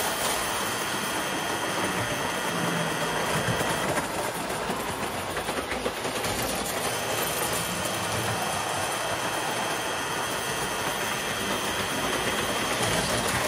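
Standard Gauge electric toy train running around the layout: a steady motor whine over wheels rolling on three-rail tin-plate track. It grows quieter for a few seconds in the middle as the train goes round the far side, then louder again near the end.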